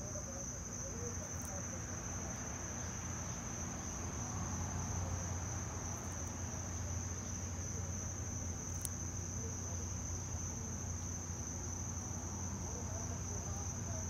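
A steady, high-pitched insect trill over a low background rumble, with a few faint clicks.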